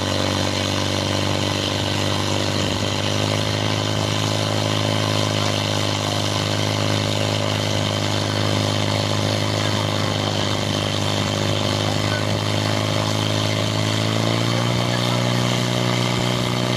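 Portable fire pump's engine running flat out, a steady high-revving drone as it drives water through the hose lines, dropping slightly in pitch about fourteen seconds in.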